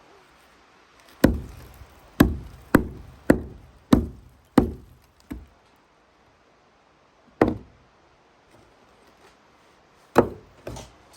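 Ice pick chipping ice off stairs: a run of about seven sharp blows roughly 0.6 s apart, one more blow after a pause, and two quick blows near the end.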